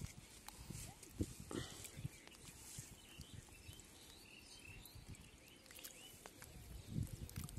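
Faint water splashing and handling sounds as hands work a fishing net just under the water's surface, with a few short low thumps.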